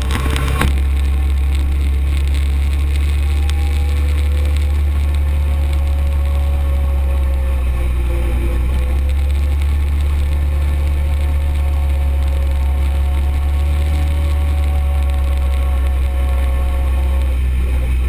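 Arctic Cat UTV running at a steady cruising speed, its engine and drivetrain giving a loud, even, deep drone with no gear changes or revving.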